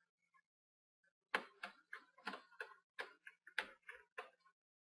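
Faint, sharp ticks from a small Phillips electronics screwdriver turning out a stiff bezel screw on a laptop screen. The ticks start about a second in and come at roughly three a second.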